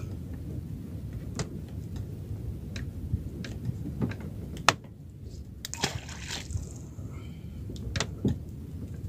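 Water sloshing and lapping against a small boat's hull, with wind on the microphone, and scattered light clicks and knocks, the sharpest a little before halfway through.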